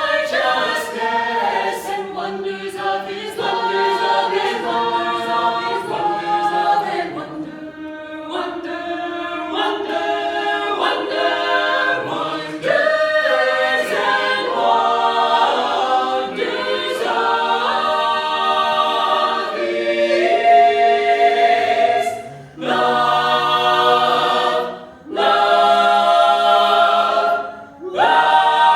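Mixed a cappella vocal ensemble singing a holiday song in close harmony, with no instruments. Near the end the voices hold long chords, each broken off by a brief pause.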